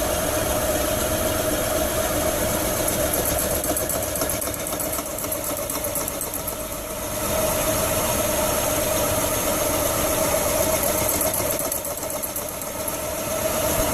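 Hyundai Santa Fe 3.5 V6 engine idling with a knocking rattle from the AC compressor's bad pulley assembly, which wobbles and bounces as the belt spins; it can pass for a failing engine bearing.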